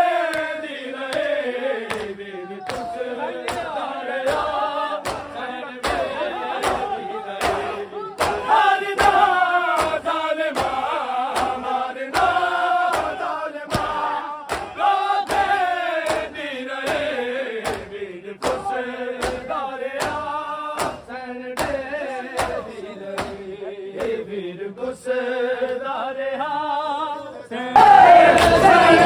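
Men chanting a noha, a mourning lament, together, kept in time by matam strokes about two a second. About a second before the end the crowd breaks into a loud shout.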